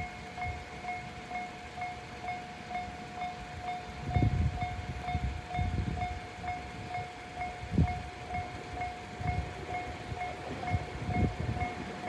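Japanese railway level-crossing alarm, the JR standard electronic bell, ringing steadily at about two and a half dings a second as a train approaches. From about four seconds in, low irregular rumbles come in under it.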